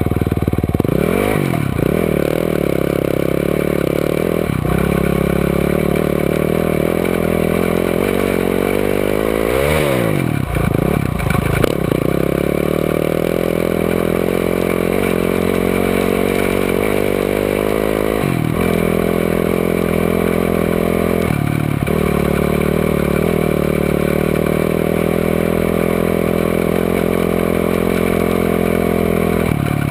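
Off-road vehicle engine heard from onboard, running hard along a dirt track. The revs drop and climb again about a second in and around ten seconds, and the steady drone breaks off briefly twice later on as the throttle is lifted.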